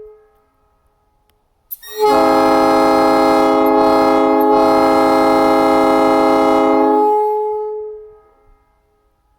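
Nathan P3 three-chime air train horn. A blast dies away at the start. About two seconds in, a short chirp comes just before a long, steady three-note chord sounding for about five seconds. It then fades out over a second or so as its echo trails off.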